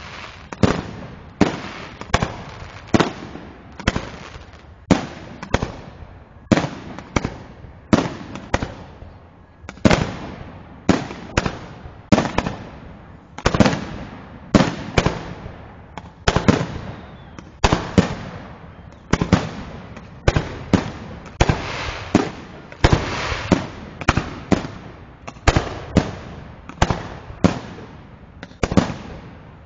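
Fireworks display: aerial shells bursting overhead in a rapid, steady series of sharp bangs, a little more than one a second, each trailing off in a short fading echo.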